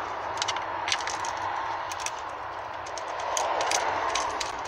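Light, irregular metallic clicks and taps as a 12mm bolt with a washer and ring terminal is fitted back into a car's dashboard side bracket by hand and the earth cable is handled, over a steady background hiss.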